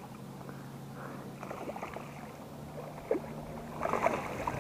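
Spinning reel being cranked steadily to bring in a small smallmouth bass hooked on a Rapala, with river water running in the background.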